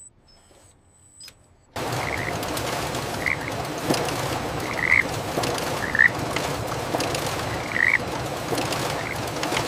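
Frogs croaking in a dense chorus that starts suddenly about two seconds in, with single louder croaks standing out roughly once a second.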